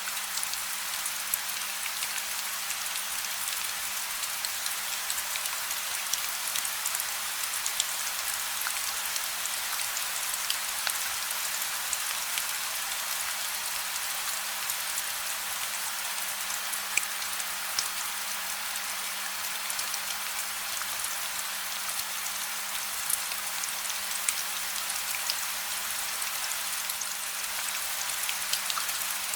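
Steady rain falling, a dense even hiss with scattered individual drops ticking through it, and no thunder. A faint steady low hum sits underneath.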